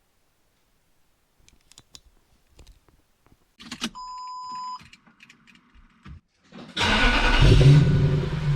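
Keys jangling and clicking, a short electronic beep lasting under a second, then the Lexus SC430's V8 engine starting and running loudly through the last two seconds.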